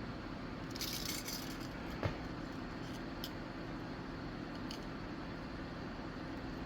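Small metal parts being handled: a carburetor jet and fine jet-cleaning tools, with a brief rustle about a second in and a single sharp click about two seconds in, over a steady faint hum.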